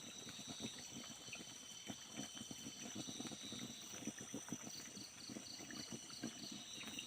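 Insect chorus with a steady high buzz and a pulsed chirping at about four chirps a second that comes and goes. Irregular low rustling and crackling runs underneath.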